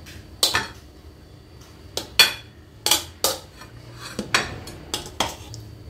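A metal serving spoon clinking and scraping against a metal cooking pot and a plate as rice biryani is dished out, with about nine sharp clinks at uneven intervals.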